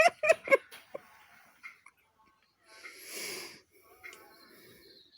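A child laughing in short, quick bursts, then a single breathy huff about three seconds in.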